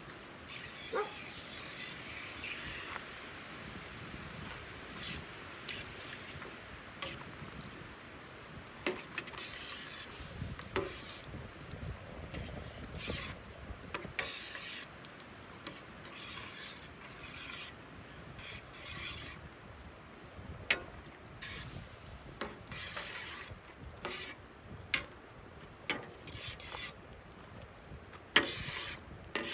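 A metal spatula scraping and stirring rice through broth in a wide steel paella pan, a rasping scrape broken by scattered sharp clicks.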